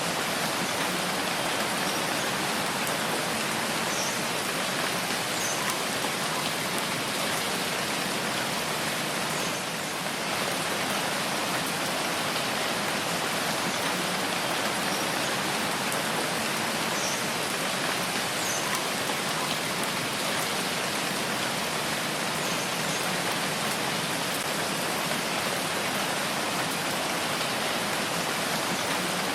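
Steady, heavy rain falling as a dense, even hiss.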